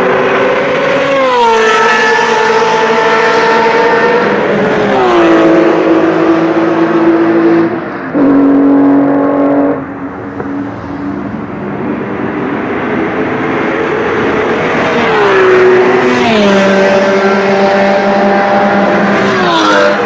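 Several sports cars passing one after another at speed on a race track, engines at high revs, each one's pitch falling as it goes by. There are about five passes, with a brief lull in the middle.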